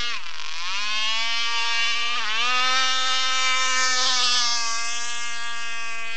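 Radio-controlled boat's Zenoah 260 two-stroke petrol engine running at high revs as a high-pitched whine. The pitch dips briefly twice, near the start and about two seconds in, as the throttle is eased, then climbs back and holds steady.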